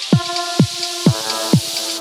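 Electronic background music with a steady beat of deep kick drums, a little over two beats a second, under held synth tones and a hiss of high percussion.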